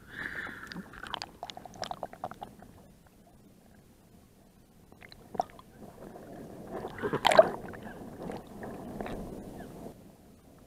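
Lake water splashing and gurgling against an action camera's waterproof housing as it skims the surface and dips under. Irregular splashes and knocks, the loudest a burst of splashing about seven seconds in, then a muffled rush.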